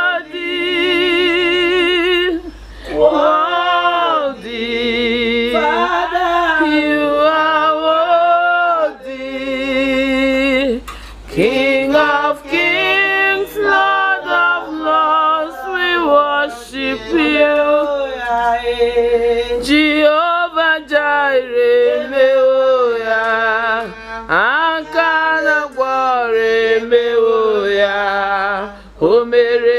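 A woman singing a Christian worship song without accompaniment, in long held phrases with a wavering vibrato on the sustained notes.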